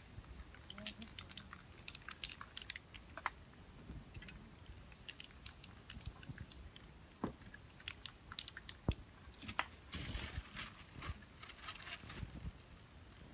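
Spray-paint cans and paper being handled on a worktable: many quick clicks and taps, with paper or cloth crinkling and rustling in a denser stretch around ten seconds in.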